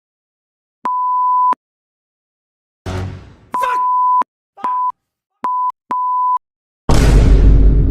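Censor bleep sound effect: a steady 1 kHz beep held for over half a second, then, after a short noisy sound, four more bleeps of varying length in quick succession. Near the end a loud, full-range noise burst lasting about a second.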